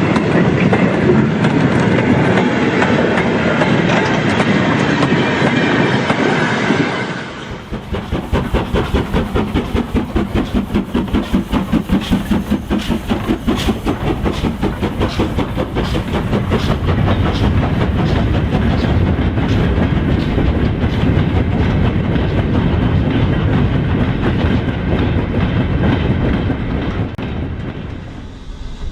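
Model train running on the layout: a dense rumble of rolling stock on the track, then, after a cut about seven seconds in, a fast, regular clicking beat from a train on the move that carries on to the end.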